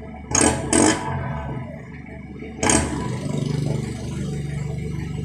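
Toyota Mighty-X pickup's aftermarket exhaust, with a Mitsubishi silencer and titanium tip, as the engine is blipped: two quick revs near the start and a third a couple of seconds later. It then settles into a steady, throbbing idle.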